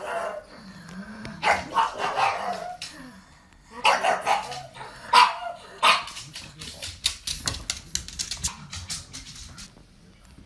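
Pug barking in three bouts of several quick barks each, a second or two apart, followed by a run of sharp clicks that fades out near the end.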